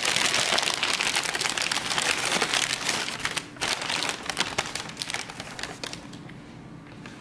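Crumpled packing paper crinkling and rustling as a jar is unwrapped from it, a dense crackle with a short pause midway that dies away about six seconds in.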